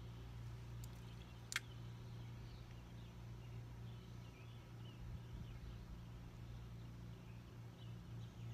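Faint birds chirping over a steady low hum, with one sharp click about a second and a half in.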